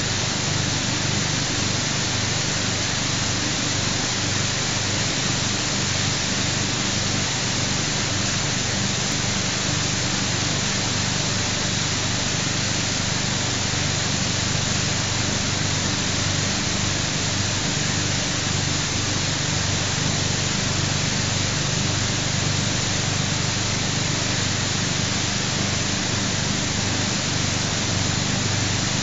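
Steady rushing hiss of water and air from a paper-pulp water filtration setup, a metal pipe and ribbed hose working in a tank of grey slurry, with a low machine hum underneath.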